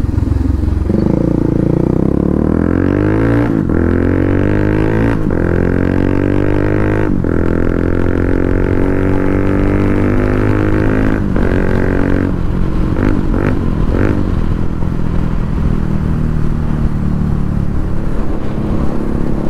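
Bajaj Pulsar motorcycle with an aftermarket SC Project exhaust accelerating through the gears: the engine pitch climbs and falls back at each of three upshifts, then holds steady at cruising speed. The exhaust note is bassy.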